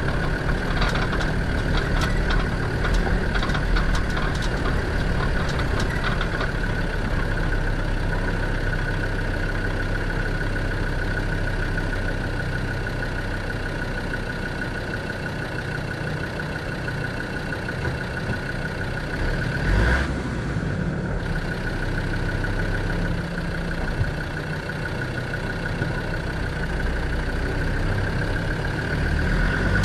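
Land Rover Defender 90 Td5's five-cylinder turbodiesel running at low revs as the truck crawls over a rocky dirt track, with a steady high whine over the engine. Scattered clicks and rattles come in the first few seconds, and there is one sharp knock about twenty seconds in.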